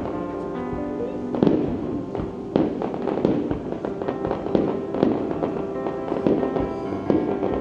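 Aerial fireworks shells bursting, a sharp bang every second or so, over steady music.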